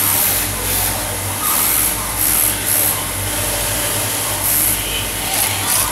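Steady electric hum from a high-head wig sewing machine's motor, under an uneven hiss that swells and fades about once a second.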